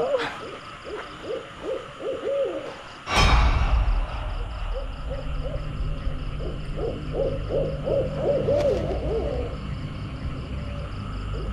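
Short pitched animal calls that rise and fall, repeated several times a second, heard in two spells. About three seconds in there is a sudden loud hit, followed by a steady low rumble.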